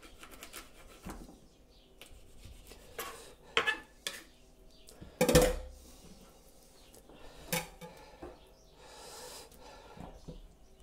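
Knife knocking, tapping and scraping on a wooden chopping board while garfish fillets are trimmed and handled, as scattered short clicks and knocks. The loudest knock comes about five seconds in, with a dull thump.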